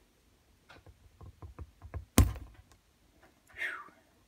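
Die-cast zinc-alloy model airplane fuselage, brittle from zinc rot, cracking under finger pressure: a run of small crackles, then one sharp snap about two seconds in as it breaks apart.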